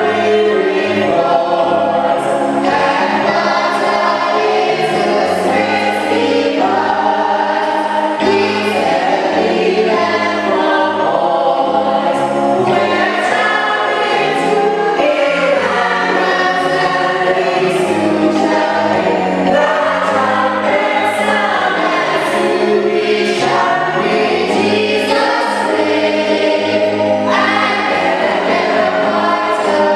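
A choir singing Christian church music, with sustained low accompanying notes under the voices.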